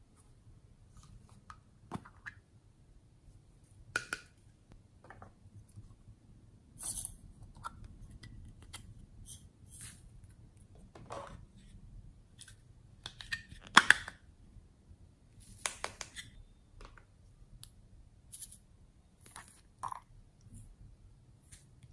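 Small plastic containers being handled, opened and tipped out: irregular clicks, taps and light rattles of plastic, with the loudest click about two-thirds of the way through.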